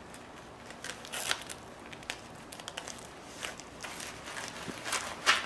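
Irregular rustling and crinkling as a cosplay suit is handled and pulled on, with short scattered rustles; the louder ones come about a second in and just before the end.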